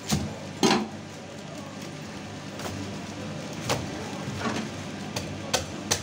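Cleaver work on a giant grouper on a thick wooden chopping block: two heavy knocks near the start, then scattered lighter knocks and taps as the fish is handled and cut, over a steady low hum.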